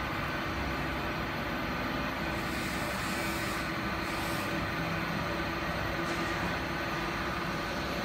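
Steady mechanical hum of running machinery with an even background noise and no separate press strokes.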